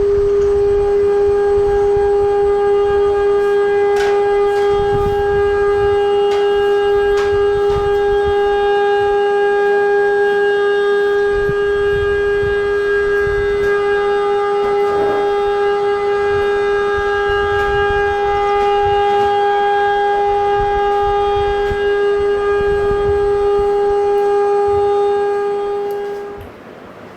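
Emergency alert alarm tone: one steady, unwavering tone held for about 26 seconds, then cut off shortly before the end.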